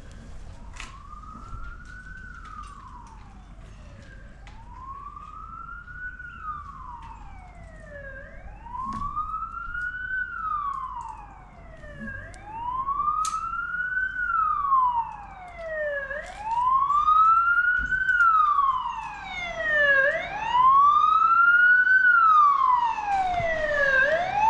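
Emergency vehicle siren wailing: a slow rise and fall in pitch repeating about every four seconds, growing louder as it comes closer.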